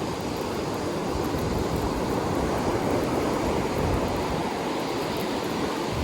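Rough Atlantic surf breaking on the beach, with wind, making a steady wash of noise.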